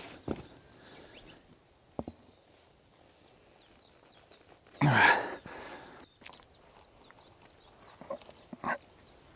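A loud, strained breath of effort lasting under a second, about halfway through, while a punctured motorcycle tyre is forced off its bead. A few light clicks and knocks from the tyre and stand come near the start and near the end.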